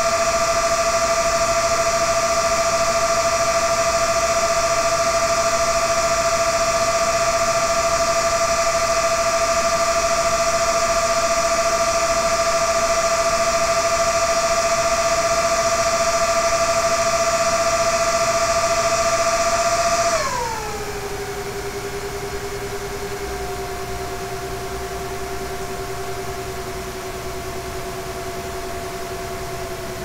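Small 40 mm San Ace 40 cooling fans of a Dell CS24-SC 1U server, only two of the four fitted, running at high speed with a loud, steady high-pitched whine and rushing air while both Xeon CPUs are under full Prime95 load. About two-thirds of the way through they spin down: the whine glides sharply lower in pitch and the sound drops in level, then settles into a quieter, lower steady whine.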